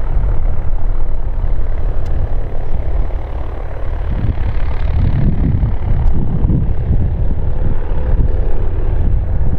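Piper PA-38 Tomahawk light trainer's four-cylinder piston engine and propeller running at low power as it taxis. Heavy wind buffeting on the microphone comes in gusts from about four seconds in.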